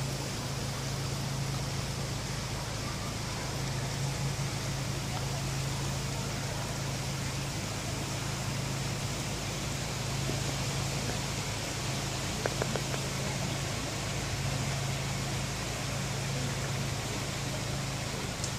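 Steady rush of muddy floodwater flowing after a tropical storm, with a few faint clicks about twelve seconds in.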